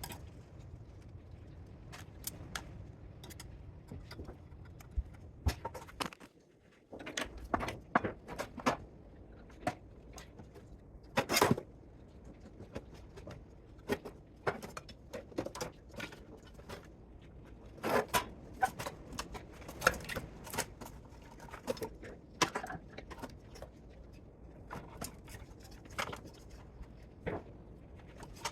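Hand tools and metal parts clicking, tapping and clinking at irregular intervals as a spot welder is taken apart for scrap.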